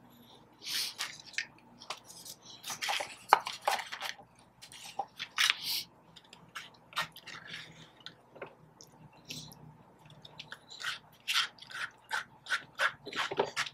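A person chewing and biting fast food close to the microphone: many quick, irregular mouth clicks and crackles, some louder than others.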